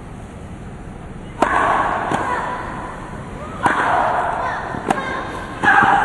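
Tennis rackets striking the ball in a rally: a serve about a second and a half in, then three more sharp hits. Three of the hits are each followed by a player's drawn-out grunt.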